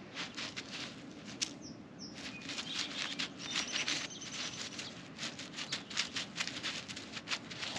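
A puppy's paws and claws pattering, making an irregular run of light clicks and taps as it moves about.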